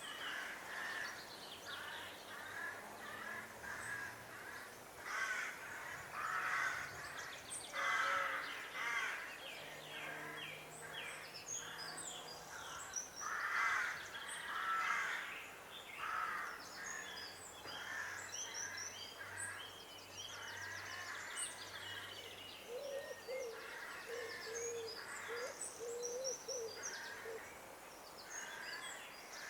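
Evening village ambience full of birds calling: dense, repeated harsh calls with higher chirps over them, and a faint low hum underneath. A lower wavering call comes in for a few seconds near the end.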